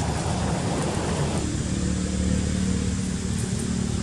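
Motor vehicle engine running steadily, a low hum at a constant pitch that stands out more clearly about a second and a half in, when a rustling hiss above it drops away.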